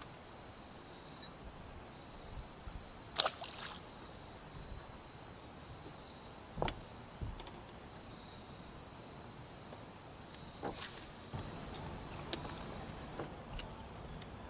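Insects trilling steadily with a fast, even pulse, under a low outdoor hiss. Several sharp clicks or knocks break in, the loudest about three seconds in and others about seven, eleven and twelve seconds in. The trill stops near the end.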